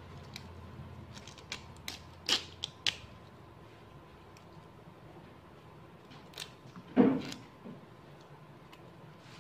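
Tender slek prich (Melientha suavis) shoots and leaves being snapped and stripped from their stems by hand over a plastic basket: a scatter of short, sharp little snaps and leaf rustles, with a louder knock about seven seconds in.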